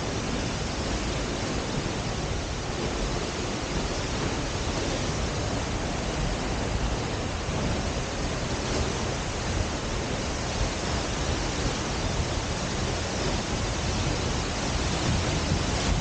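A tall waterfall plunging into its pool, heard close up: a steady, even rush of water with a deep rumble underneath.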